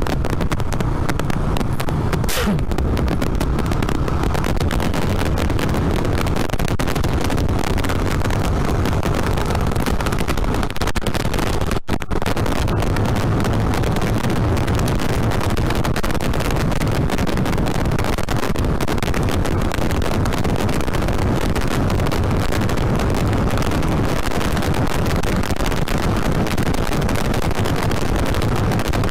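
A 2007 Yamaha Vixion's 150 cc single-cylinder engine running steadily under way as the bike picks up speed, mixed with heavy wind rush on the microphone. The sound cuts out for an instant about twelve seconds in.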